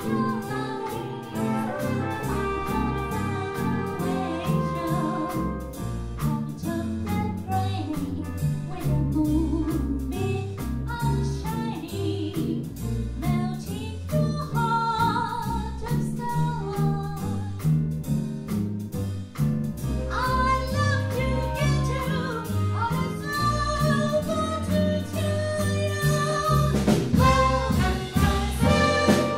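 Live jazz band with a horn section of trombone, trumpets and saxophones, electric guitar, bass and drum kit playing a tune with a steady beat, a woman singing the lead vocal. The band fills out from about two-thirds of the way in.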